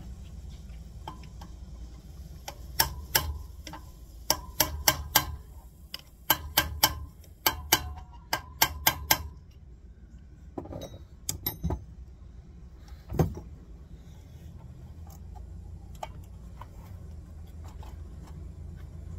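Sharp metal-on-metal hammer taps driving sealed bearings into a motorbike wheel hub. The taps come in quick bunches through the first half, then a few single taps follow later on.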